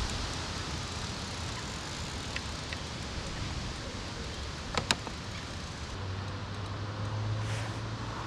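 Steady outdoor rushing noise, with two sharp clicks just before five seconds in. A low steady engine hum sets in about six seconds in.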